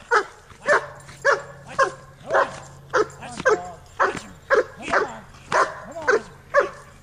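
German Shepherd-type dog barking steadily, about two barks a second, at a helper agitating it during bite-work protection training.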